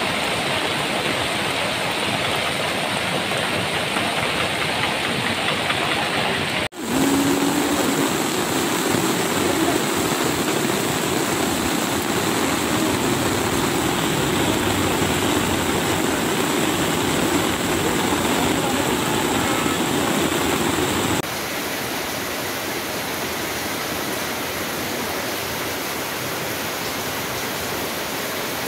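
Steady rushing of a swollen, muddy floodwater torrent. The sound breaks off and resumes at a different level at about 7 s and again at about 21 s.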